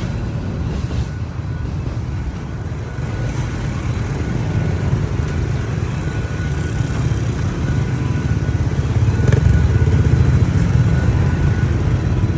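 Low, steady vehicle rumble that grows louder about eight seconds in, with a faint high tone coming and going above it.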